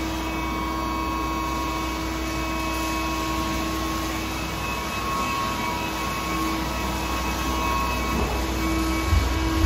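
Durma CNC press brake running with a steady machine hum made of a low rumble and a few constant tones; a deeper low surge comes in about nine seconds in.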